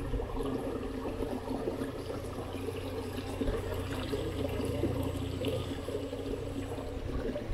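Water in a drainage ditch flowing and trickling steadily, swollen after heavy rain.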